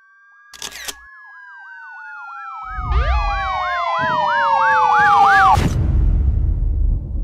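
Police siren sound effect: a wail that grows louder and turns into a fast warbling yelp, with more gliding tones joining partway through. It cuts off suddenly about five and a half seconds in, with a low rumble underneath that carries on after the cut.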